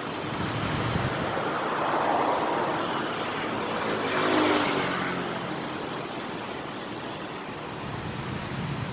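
City road traffic with vehicles passing close by, one after another: two swells, about two seconds in and, loudest, about four and a half seconds in, the second with a brief engine note.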